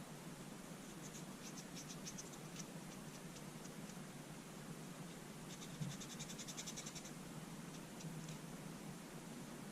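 Faint, quick scratching in two short bouts, about a second in and again past the middle: small hand work scrubbing or scraping a carburetor part clean.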